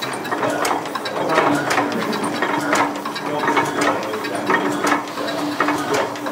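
Antique stationary gas engine running, its exhaust piped outside so that mainly its mechanical clatter is heard: even, rhythmic clicking of the valve gear and moving parts, about two to three clicks a second, over a steady low hum.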